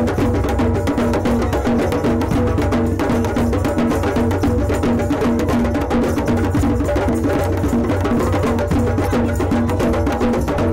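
Drum circle: many hand drums, djembes among them, played together in a dense, steady rhythm.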